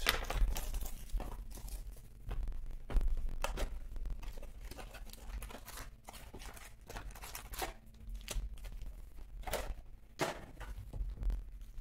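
A box of Topps Tribute baseball cards being opened by hand and its wrapped packs pulled out and set down: tearing and crinkling of the packaging with scattered rustles and light taps.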